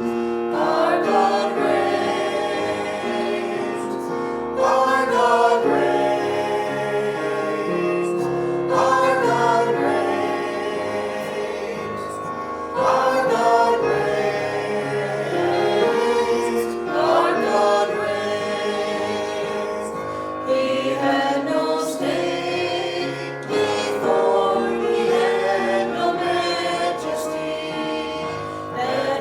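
Church worship team singing a worship song, a new sung phrase swelling in about every four seconds.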